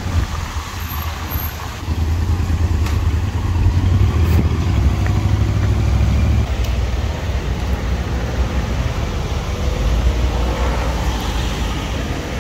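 Outdoor street noise made up of a loud low rumble of wind buffeting the microphone, mixed with passing road traffic. The rumble is heaviest for a few seconds and eases about six seconds in.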